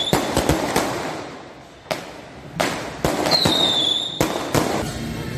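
Firecrackers going off in the street: sharp bangs and crackling in bursts. About three seconds in, a high whistle falls in pitch and ends in a loud bang.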